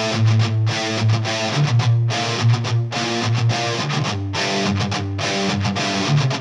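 Background music: a song with electric guitar and a steady beat.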